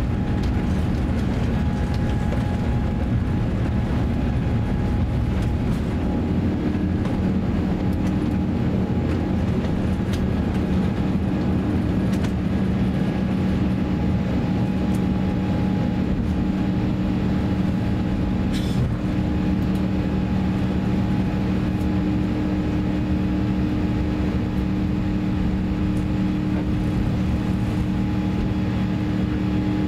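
Cabin noise of an Airbus A350-900 on its takeoff run and initial climb: the Rolls-Royce Trent XWB engines at takeoff thrust make a steady, loud drone over a deep rumble, with a steady low hum.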